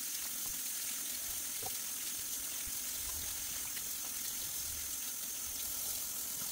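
Kitchen faucet running steadily, its stream splashing over carrots being rinsed and scrubbed by hand in the sink, with a few faint knocks.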